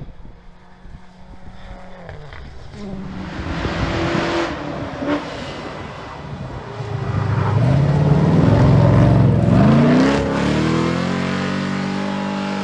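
Rally car engine at full stage pace, growing louder as the car comes closer and accelerates hard. It is loudest about eight to ten seconds in, with the engine pitch climbing, then settles into a steadier note.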